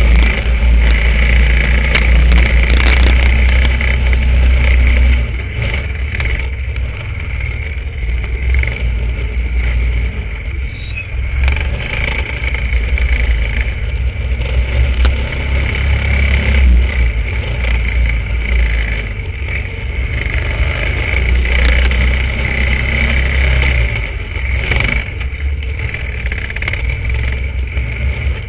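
Snowmobile engine running as the sled is ridden, the throttle rising and easing off; loudest for the first five seconds or so, then a little lower and uneven.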